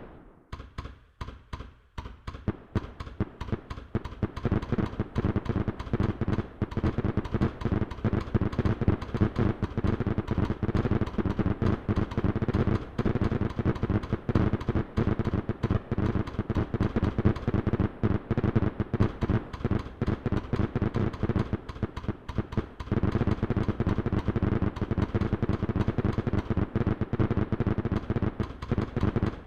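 Fireworks going off in a continuous crackling barrage of bangs, a few spaced ones at first, then many a second from about two seconds in.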